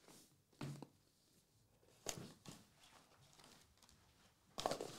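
Faint handling noise of trading cards and a cardboard card box: a few brief rustles and taps, about half a second in, around two seconds in and again near the end.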